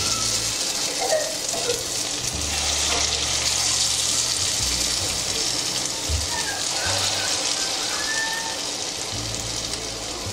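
Hot oil in a kadhai sizzling steadily as spoonful-sized portions of mixed dal vada batter are dropped in by hand to deep-fry, over background music.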